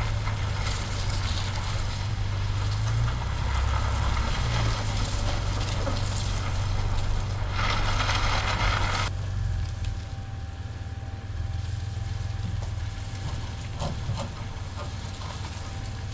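Truck engine running steadily with metallic clinks and rattles. The sound changes abruptly about nine seconds in to a quieter engine with a faint steady whine and scattered clicks.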